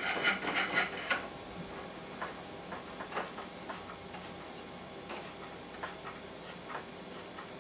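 Nuts and plastic nut covers being turned by hand on threaded steel rods, clicking as they tighten: a quick run of clicks in the first second, then scattered single ticks.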